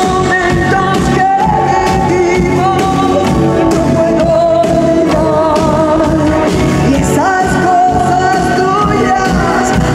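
A woman singing a pop song live into a handheld microphone, holding long notes with vibrato, over a full backing band with steady drums.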